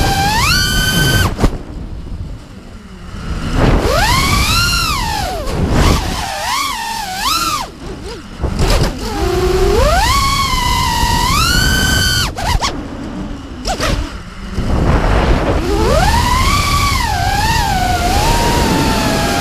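Onboard audio of an FPV racing quadcopter's Lumenier 2206 2350kv brushless motors with 5-inch props whining, the pitch sweeping sharply up and down with the throttle over wind noise. The whine falls away three times as the throttle is cut, about a second and a half in, around eight seconds and around twelve and a half seconds.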